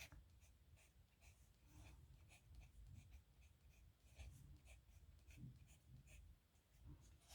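Faint scratching of a nib pen on paper, in many short, irregular strokes as letters are written.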